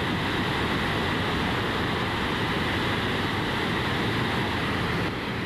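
A large waterfall in heavy flood, heard close up: a loud, steady rush of falling water that dips slightly near the end.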